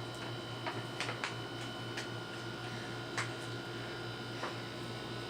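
Quiet room tone: a steady low hum with a few faint, irregular clicks scattered through it.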